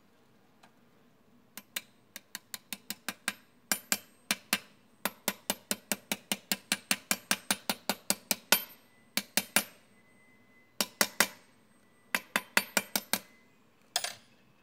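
Hammer striking a metal drift held on a ball bearing in an aluminium transmission case, driving the bearing in its bore. Quick sharp metallic taps come in runs of several at about four to five a second, with short pauses between runs.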